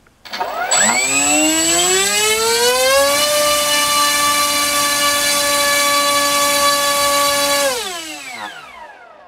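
NTM Prop Drive 2836 2200 kV brushless motor spinning a 7x5 APC electric propeller on a 3S battery in a full-power thrust-test run: it winds up with a rising whine over about three seconds, holds a steady pitch for about four and a half seconds, then spins down with falling pitch near the end. A thin high whistle runs alongside while it is under power.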